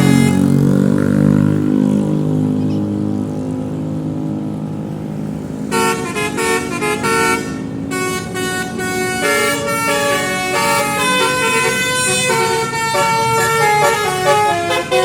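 Low steady drone for the first few seconds, then from about six seconds in a multi-tone telolet horn on an intercity bus playing a quick melody of stepped notes, changing pitch several times a second.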